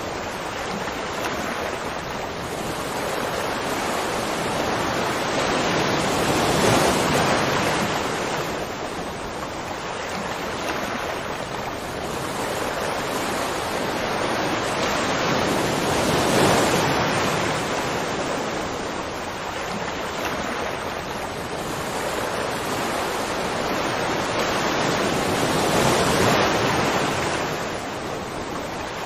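Ocean surf: a continuous rush of waves breaking and washing in, swelling louder about every ten seconds.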